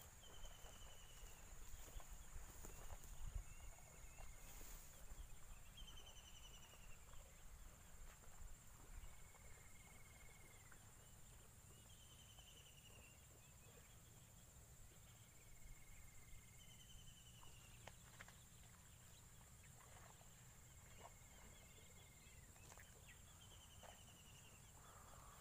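Faint bird calls: a short trilled call alternating with a lower, slightly longer note, one phrase every three seconds or so, over a steady thin high whine and a low rumble.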